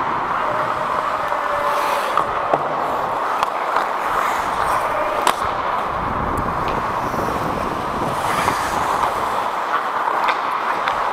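Ice hockey play heard close up from a helmet-mounted microphone: a steady hiss of skates on the ice, with sharp clacks of sticks and puck now and then.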